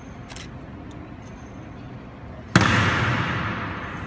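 A single loud strike from the honor guards' drill about two and a half seconds in, ringing out in a long echo through the marble hall that fades over about a second and a half.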